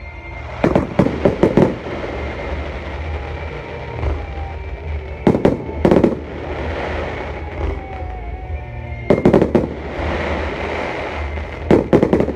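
Fireworks display: aerial shells bursting in four quick volleys of sharp bangs, about a second in, near six seconds, near nine seconds and just before the end.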